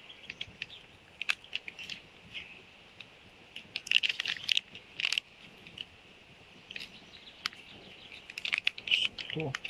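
Double-sided tape being pulled off its roll and pressed around a tomahawk's plastic handle, the white backing paper crinkling, with crackling clicks in bursts that are loudest about four seconds in and again near the end.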